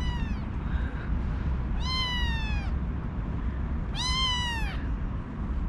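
A kitten meowing loudly three times, each meow under a second long and falling in pitch at its end: it is asking to be petted. A steady low background rumble runs underneath.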